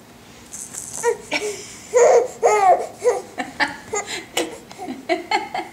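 A baby girl with hiccups laughing in a run of short, high-pitched bursts, starting about a second in.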